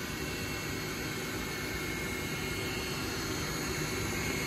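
Ortur Laser Master 3 diode laser engraver running while it frames a job at low laser power: a steady whirring hiss with a few faint, even tones.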